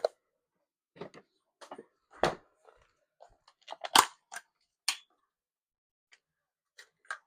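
Scattered clicks and knocks of objects being handled, the loudest about two and four seconds in.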